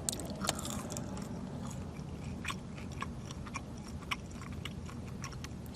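Chewing on McDonald's french fries close to the microphone: irregular small crisp clicks of the fries being bitten and chewed, over a low steady hum.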